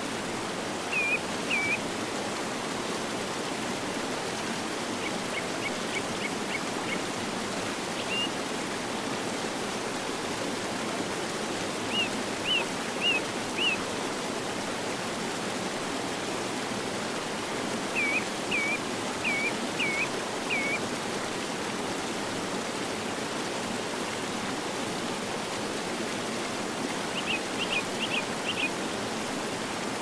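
Steady rushing of a mountain river cascade, with a songbird calling over it in short phrases of a few quick, high repeated notes every few seconds.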